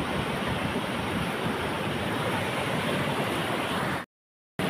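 Fast mountain river rushing over stones in a steady wash of water noise, broken by half a second of dead silence about four seconds in.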